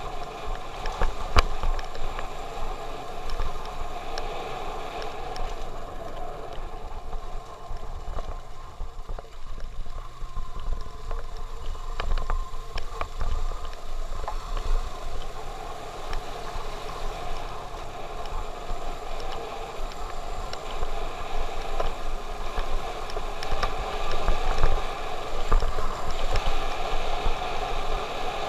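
Motorcycle engine running as the bike rides along a rough road, with low wind rumble on the microphone and a few sharp knocks from bumps. The engine note eases off in the middle and picks up again near the end.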